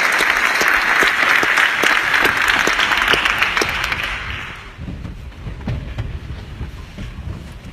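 Audience applauding after a violin performance, dense clapping that dies away from about four seconds in, leaving a low rumble of the hall.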